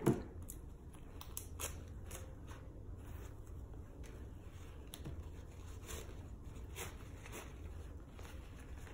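Light scattered clicks, snips and rustles of packaging being handled and opened with scissors, over a low steady hum.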